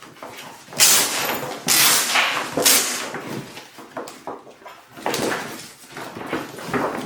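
Velcro hook-and-loop closure on a PVC duffle bag being pulled apart: three tearing rips about a second apart, then another near the middle, with the stiff bag material rustling in between.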